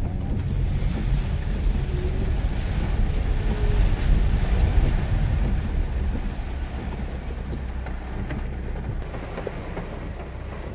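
Mitsubishi Pajero Mini kei 4x4 driving on a wet road in heavy rain: a steady low engine and road rumble under a rushing water hiss that swells in the middle and eases off toward the end.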